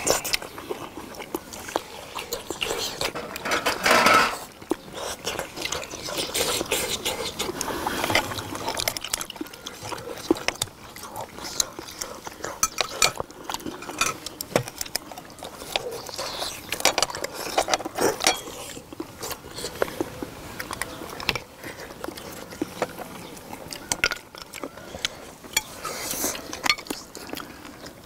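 People eating seafood stew: chewing and slurping broth, with many small clicks of chopsticks and shells against bowls and the metal pan.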